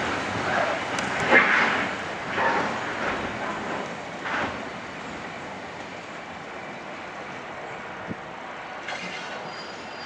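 Mendip Rail open box wagons of a freight train rumbling and knocking over the track as the tail of the train pulls away, the sound fading after about four seconds. A faint high wheel squeal comes in near the end.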